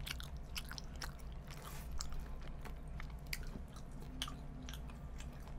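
Close-miked chewing of a mouthful of hot dog, a Burger King American Dog sausage in a soft bun with mustard, with small mouth clicks scattered throughout.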